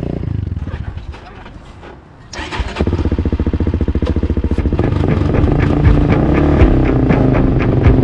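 Four-wheeler engine, low and pulsing, fading about a second in, then coming in suddenly and loudly a little over two seconds in and running hard with a fast, even beat, getting louder around five seconds in as it is pushed harder.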